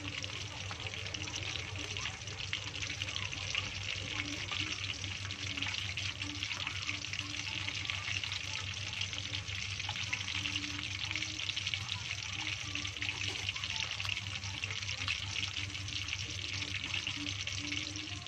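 Hot oil sizzling steadily in a steel wok as pandan-leaf-wrapped bundles deep-fry, with scattered small crackles.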